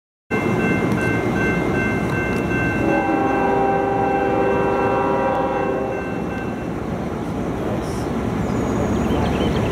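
Train horn sounding a held chord over a steady rumbling noise. The horn fades out about two-thirds of the way through, leaving the rumble.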